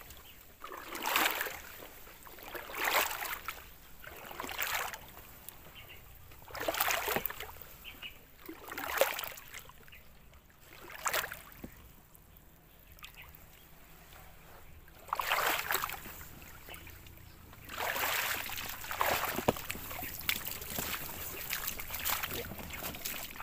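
Water sloshing and splashing in repeated surges, one every second or two, as someone wades through floodwater.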